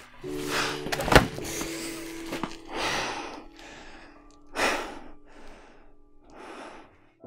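A man's heavy breaths and sighs, four or five swells a second or two apart. A sharp thump about a second in is the loudest moment, and a low held music chord sounds beneath for the first five seconds.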